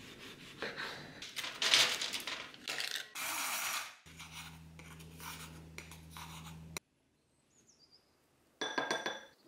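Close-up kitchen handling sounds: a knife slicing through an orange on a wooden cutting board, then a wooden spoon scraping powdered dried orange out of a metal grinder cup over a low hum, and near the end a brief ringing clink and scrape against a glass bowl.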